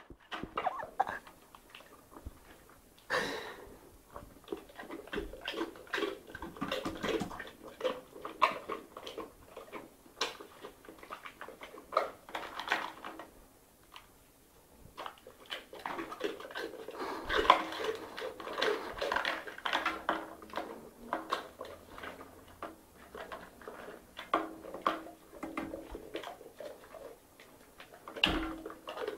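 A person eating noisily from a small plastic tray: chewing and mouth sounds mixed with the clicks and crinkles of the plastic being handled, in irregular bursts, with a brief silence about halfway through.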